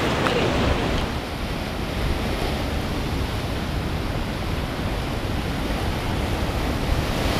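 Ocean surf washing steadily over and between shoreline rocks, with wind rumbling on the microphone.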